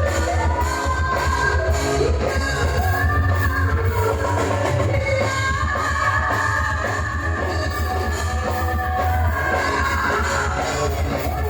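Band music with drum kit, bass and guitar under a sustained melody line.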